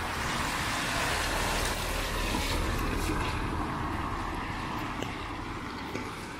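A car driving past on a wet street: tyre hiss on the wet road swells over the first couple of seconds and then slowly fades as it moves away.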